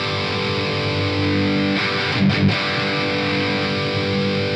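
Distorted electric guitar played through the AmpliTube 4 Mesa/Boogie Mark IV amp simulation on its lead voicing: a chord left ringing for several seconds, with a few picked notes about two seconds in, then muted suddenly at the end.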